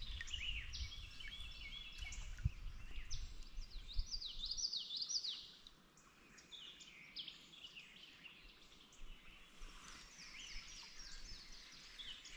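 Several songbirds singing together in quick chirps and short sweeping whistles. For the first five seconds or so a low rumble with a couple of knocks lies under the birdsong, then it drops away.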